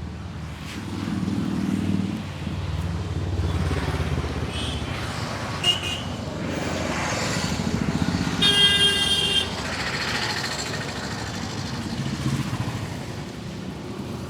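Road traffic running by with a low, steady engine rumble; a vehicle horn sounds for about a second a little past the middle.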